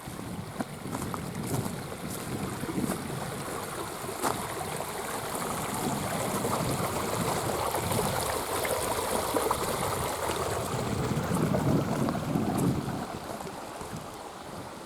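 Stream water running, a steady rushing that grows louder through the middle and drops away about two seconds before the end.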